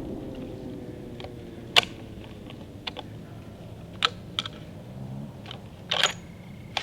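A rifle shot's echo rolls away and fades over the first couple of seconds. Then come about six sharp, separate small clicks and knocks, spread through the rest of the time.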